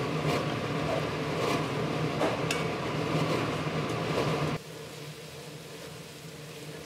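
Wooden spatula stirring soaked rice and water in an enamelled cast-iron pot on a hob, with faint scrapes over a steady hum. About two-thirds of the way through the sound drops suddenly to a quieter steady hum.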